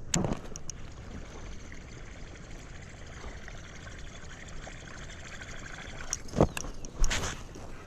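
River water running and trickling around a kayak, a steady wash, with a few short knocks near the start and twice near the end.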